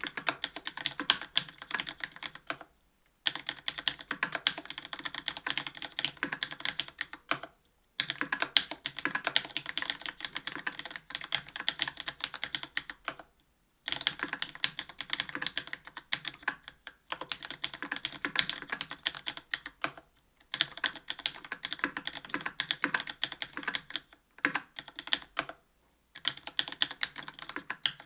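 Mechanical keyboard typing: Cherry MX Black linear switches in an aluminium plate with GMK keycaps, clacking in quick bursts of keystrokes with short pauses between them.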